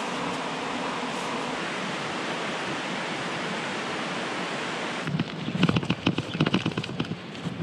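A steady rushing hiss for about five seconds, then an abrupt change to irregular crunching footsteps on gravel.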